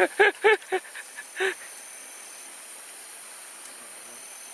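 An animal calling in a quick run of short, pitched calls, about four a second. The run stops about a second in, with one more call about a second and a half in. A steady high insect drone runs underneath.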